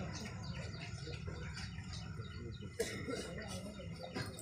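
Low murmur of a gathered outdoor crowd, with a couple of sharp clicks, one just before the three-second mark and one near the end.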